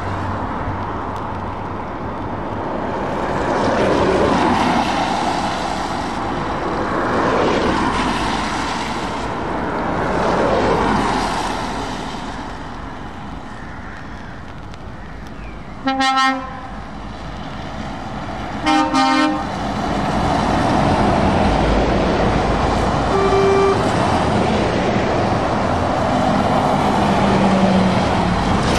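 A convoy of lorries and cars passes on a wet road, engines and tyre hiss swelling and fading as each goes by. About halfway through a truck horn gives two short blasts a few seconds apart, followed by a brief higher toot.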